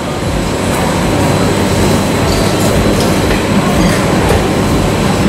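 Loud, steady rumbling background noise with no clear breaks or strikes.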